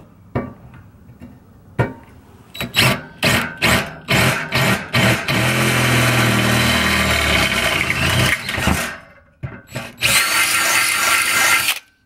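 Electric drill with a larger twist bit enlarging a pilot hole through a metal fridge slide rail to take a bolt. It starts with several short trigger pulls, then runs steadily with the bit cutting, pauses about nine seconds in, and runs again before stopping.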